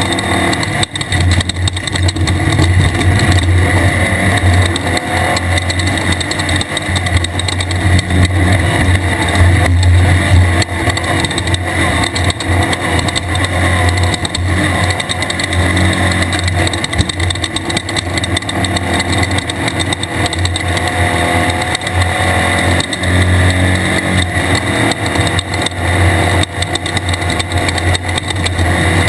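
Air-cooled VW-based 1600 cc engine of a 1/2-1600 class off-road race car running hard at steady revs, with a constant clatter of rattles and knocks over rough ground.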